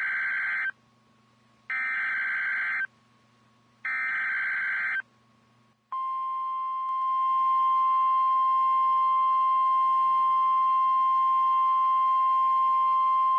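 Emergency Alert System header: three bursts of SAME data, each about a second long with a second's gap between them. About six seconds in, a steady single warning tone starts, gets louder a second later and holds. This tone is the 1050 Hz alert tone that announces a new tornado warning.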